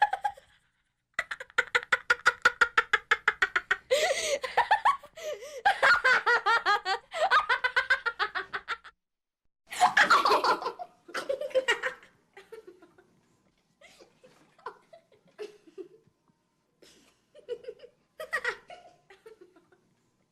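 Human laughter: a long, rapid run of 'ha-ha-ha' laughing for several seconds, then a couple of separate loud bursts, then shorter, fainter chuckles trailing off.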